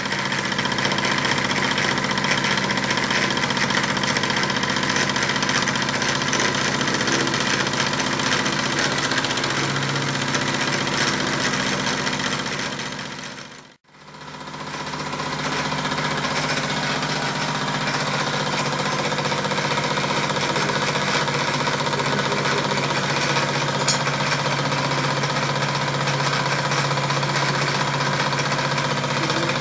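Bowman E101 toy live steam engine and the model workshop machines it drives through rubber bands off a lineshaft, all running together with a fast, steady mechanical clatter. The sound drops out for a moment about halfway through and comes back at the same steady pace.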